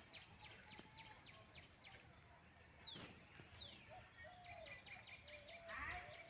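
Faint birdsong outdoors: a quick series of high, falling chirps, about three a second, then two longer down-slurred whistles and a run of short lower notes.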